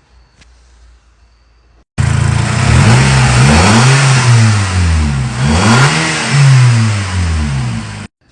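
A 2008 Audi TT mk2's engine revved twice, the pitch climbing and falling back each time, with a strong rushing intake noise over the engine note. It starts suddenly about two seconds in and cuts off sharply near the end, like an edited clip.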